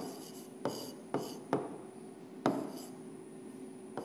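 A pen tapping and scraping on the glass screen of an interactive whiteboard during handwriting: a handful of short, irregular taps with faint scratching between them.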